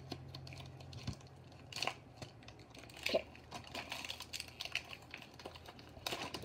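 Crinkly booster-pack wrapper of a Pokémon card pack being handled and torn open, a run of scattered crackles and ticks.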